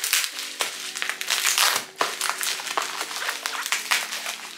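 Plastic bubble wrap crinkling and crackling as it is pulled and torn open by hand, over quiet background music.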